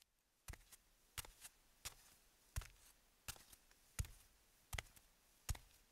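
Faint, regular ticking: a sharp tick about every 0.7 seconds, each followed by one or two softer ticks.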